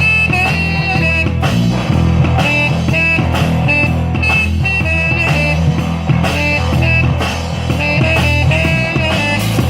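Band playing a bluesy rock number: a sustained, bending lead melody over a heavy low bass line and drums.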